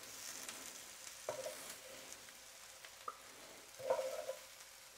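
Metal tongs clicking and scraping on an electric skillet as cooked shrimp are lifted out, with a few sharp taps and a short cluster of knocks near the end. A faint sizzle comes from the still-hot pan, which has just been unplugged.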